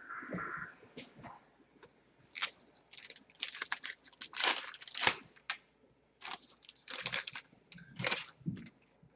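Crinkling and rustling of a foil trading-card pack wrapper being torn open and the cards handled, in a run of short, sharp, irregular crackles.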